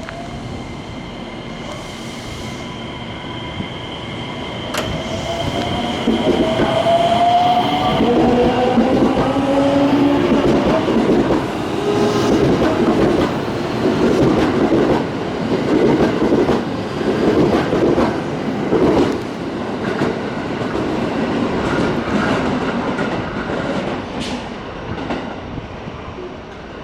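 Electric commuter train running into the station: its motors whine down in pitch as it brakes, then the wheels beat over the rail joints at about one knock a second as it rolls along the platform.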